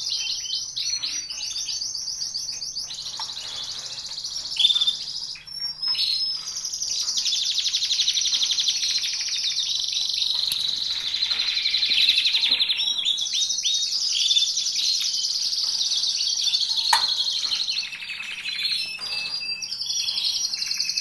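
Canaries singing: fast, high trills and chirps that run on without a break, with a few sharp knocks in between.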